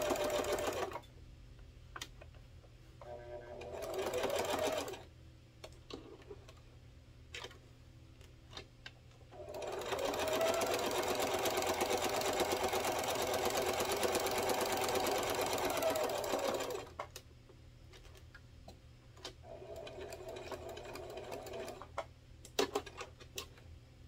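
Singer Classic domestic sewing machine topstitching in several runs: a short run ending about a second in, another near four seconds, a long run of about seven seconds from about ten seconds in, and a softer run near twenty seconds. The motor whine rises as each run starts and falls as it stops. Small clicks and taps come between the runs.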